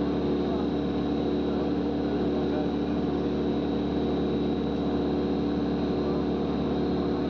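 Steady drone of an airplane's engines, even and unchanging, with a thin high whine on top.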